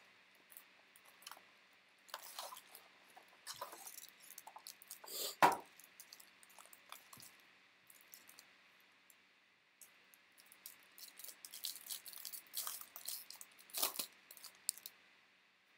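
Trading-card pack wrappers crinkling and tearing open in irregular bursts, with the sharpest crackle about five seconds in, then a quiet pause before more crinkling from about ten seconds.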